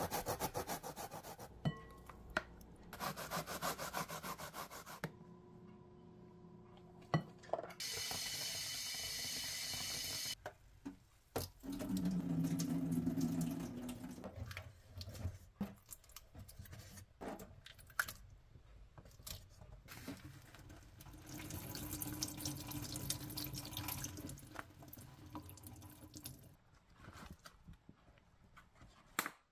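Korean radish rubbed over a plastic grater in quick rasping strokes, then a kitchen tap running into a bowl for a couple of seconds. After that, water sloshes as the grated radish is rinsed and squeezed by hand.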